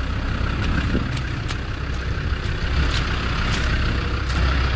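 Off-road 4x4's engine running steadily with a low rumble, with a few faint clicks and knocks over it.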